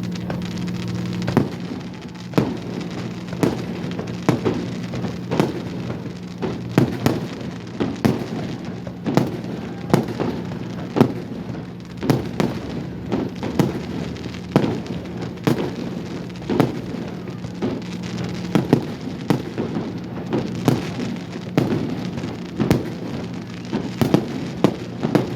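Fireworks display: a rapid, irregular run of booming bursts and crackling pops, about one or two loud bangs a second, over a steady low hum.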